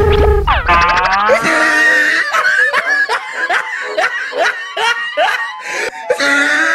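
Closing sting of a comedy show: a rising swoosh at the start, then a rapid run of high-pitched laughter, about three 'ha's a second.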